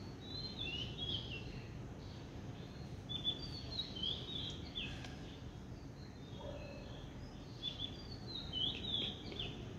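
Birds chirping: short, high, down-slurred chirps in several clusters, near the start, in the middle and near the end, over a steady low background noise.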